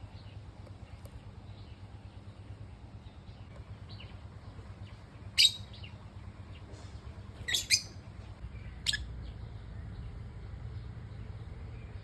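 Pet lovebirds giving a few short, sharp chirps: a loud single one about halfway through, a quick pair a couple of seconds later, then one more. A steady low hum runs underneath.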